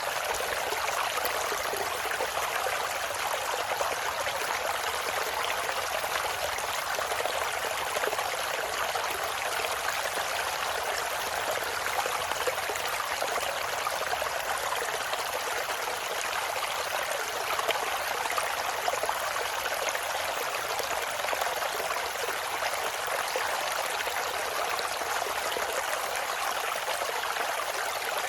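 Water of a mountain valley stream flowing and splashing steadily, an even rushing noise with no change.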